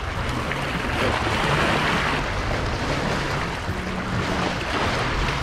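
Small waves washing over and splashing against the rocks of a jetty in shallow water, a steady wash that swells a little about a second in.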